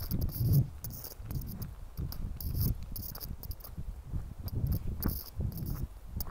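A hiker's footsteps on a dry, needle-strewn dirt forest trail: a dull thump about every half second to second, several with a short high crunch.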